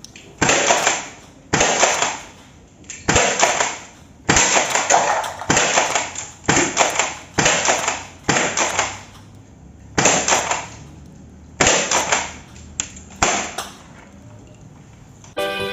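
6 mm airsoft shotgun being fired again and again: about a dozen sharp shots at irregular gaps of roughly a second, each trailing off over about half a second. A brief pitched tone comes near the end.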